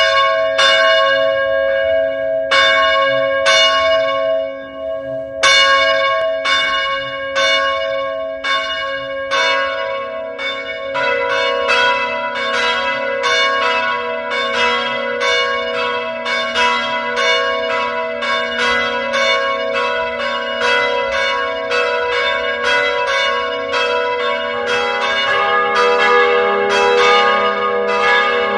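Church bells ringing a festive peal: single strikes about a second apart at first, then from about ten seconds in several bells sound together in a quicker, overlapping pattern, with a deeper bell joining near the end.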